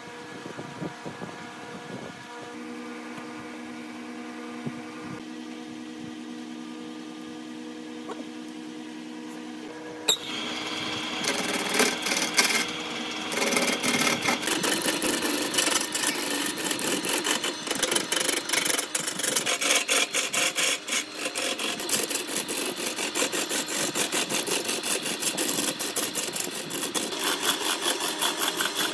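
Large wood lathe running with a steady hum. About ten seconds in there is a click, and then comes the louder, uneven scratch of sandpaper pressed against the spinning laminated wood cylinder.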